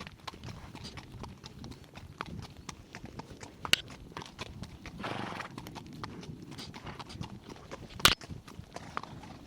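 Hooves of a ridden horse clip-clopping in an uneven run of knocks, with two sharper, louder knocks, one past a third of the way in and one near the end, and a brief rush of noise about halfway.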